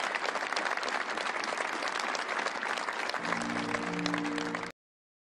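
Audience applauding. A few low, held music notes come in about three seconds in. Then all sound cuts off abruptly to silence near the end.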